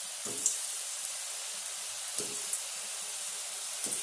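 Sweet seedai dough balls deep-frying in hot oil in a metal kadai: a steady sizzling hiss with scattered crackles, and three soft plops as more balls are slipped into the oil.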